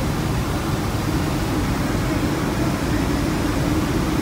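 Even rumble and rush of air inside a Boeing 757-200's passenger cabin, with a faint low hum.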